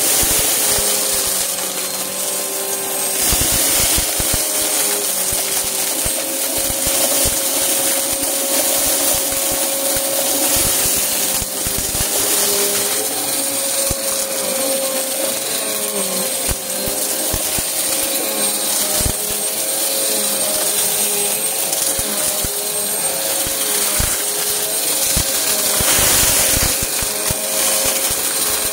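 Upright vacuum cleaner running over carpet, a steady motor whine with frequent sharp clicks and crackles as crunchy pink and purple debris is sucked up and rattles through it.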